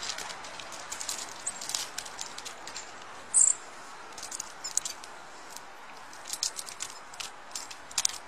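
Small forest animals taking nuts and seeds at a feeding spot: a stream of quick, high scratches and ticks, with one louder, brief, high squeak about three and a half seconds in.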